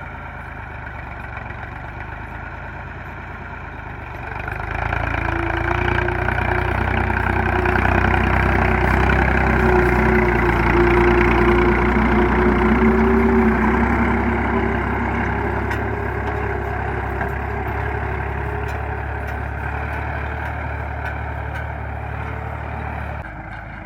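Massey Ferguson 240 tractor's three-cylinder diesel engine running steadily under load while pulling a tine cultivator. It grows louder about four seconds in as the tractor comes close, then slowly fades.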